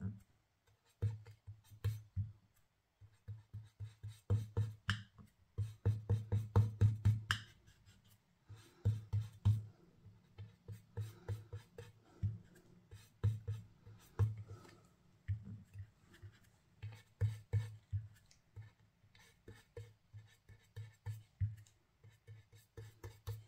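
Ink blending brush dabbed repeatedly onto an ink pad and onto paper die-cuts: runs of dull taps, a few a second, broken by short pauses.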